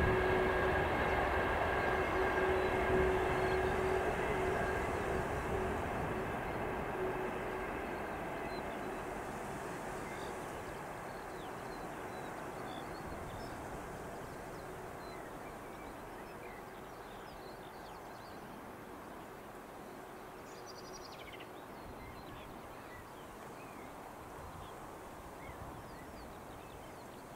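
Container freight train passing on the line, a steady whine over its running noise. It fades steadily as the wagons draw away, and the whine dies out about a third of the way in.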